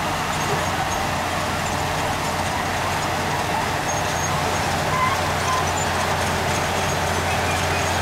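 Heavy diesel earthmoving machinery running steadily: an even engine rumble with a constant low hum.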